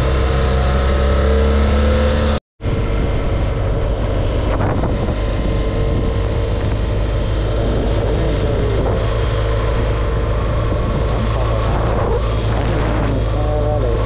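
BMW R 1200 GS boxer-twin engine running while riding, with wind rushing over the microphone. The sound cuts out completely for a moment about two and a half seconds in, then carries on steadily.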